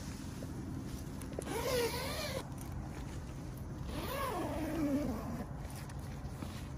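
An animal calling twice: a short call with a wavering pitch about a second and a half in, then a longer call that slides down in pitch about four seconds in.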